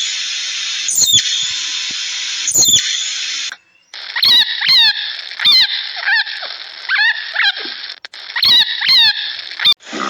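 An animal giving short squealing calls over a steady hiss, then, after a cut, a run of about ten short, harsh calls.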